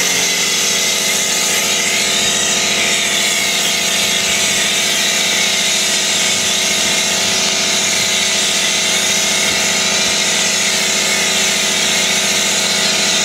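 Pressure washer running steadily, its pump driving a foam lance that sprays a jet of car shampoo foam onto a car's bodywork: a steady motor-and-pump hum under the hiss of the spray.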